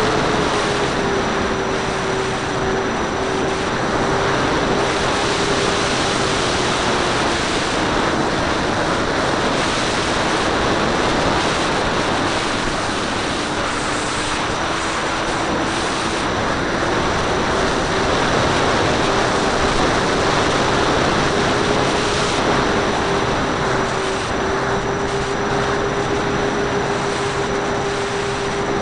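Banana Hobby P-38 radio-control model's electric motors and propellers running in flight, heard from an onboard camera over steady wind rush. The motor pitch drops just after the start, sags lower in the middle and climbs again about two-thirds through as the throttle changes.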